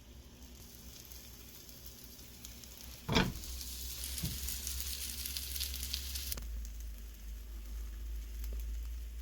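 Food sizzling in a hot frying pan, starting with a sharp loud hit about three seconds in, as if ingredients go into the pan, then a steady high hiss.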